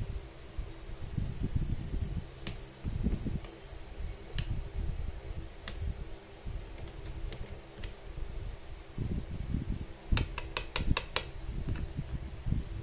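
Small metal clicks of steel bolts and nuts being handled and threaded into an angle grinder's gearbox housing, single clicks every second or two, then a quick run of about six clicks near the end, over a low uneven rumble.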